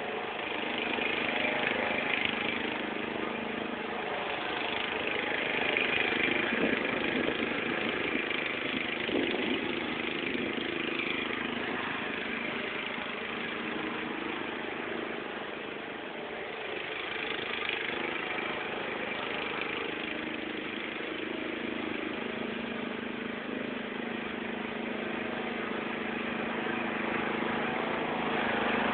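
Zero-turn riding mower's engine running steadily as the mower drives around, its loudness rising and falling with distance and growing louder near the end as it comes close.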